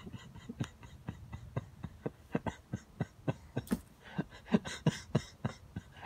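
Suppressed laughter: a quick, irregular run of short breathy puffs and clicks, with a few brief voiced chuckles toward the middle and end.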